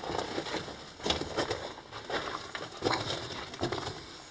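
Irregular scuffs and crunches of boots on loose rock and gravel, with clothing and backpack rustling, as a person squeezes through a tight mine passage.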